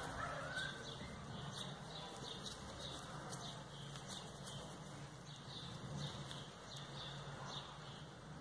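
Small birds chirping faintly, short high chirps repeating two or three times a second, over a low steady hum.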